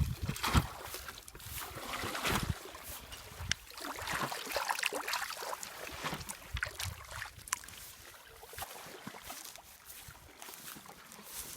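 Shallow water splashing and sloshing in irregular bursts with scattered small knocks, loudest in the first couple of seconds and quieter near the end.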